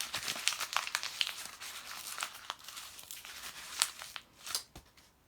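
A sheet of paper being scrunched up by hand: dense crinkling that thins to a few separate sharp crackles near the end.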